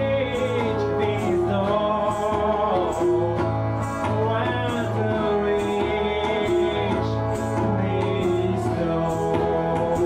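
Live acoustic music: acoustic guitar and tabla with a singing voice over a steady low drone.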